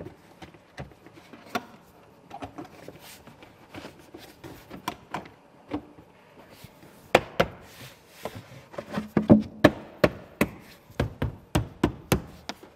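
Tesla Model 3 interior trim panels being fitted back into place, a string of sharp plastic clicks and knocks. They are sparse and light at first, then come loud and quick, about two or three a second, through the second half.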